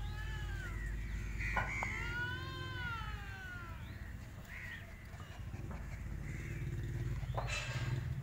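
Puppies whining and yelping as they play-fight, with high whines that rise and fall during the first three seconds, and a low steady hum underneath.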